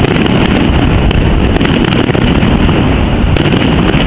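Wind buffeting the microphone: a loud, steady low rumble with no distinct bangs standing out.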